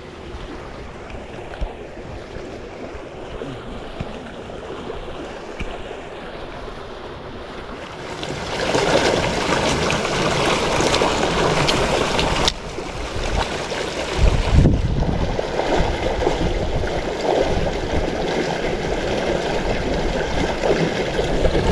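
Steady rushing noise of wind and flowing river water, much louder from about eight seconds in, with low rumbles of wind buffeting the microphone from about halfway through.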